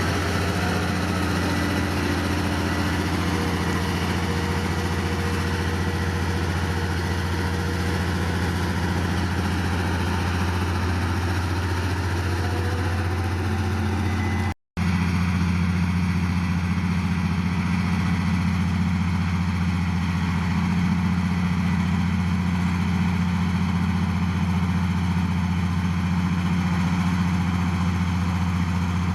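Heavy diesel earthmoving engine running steadily with a low, even hum. The sound cuts out completely for an instant about halfway through.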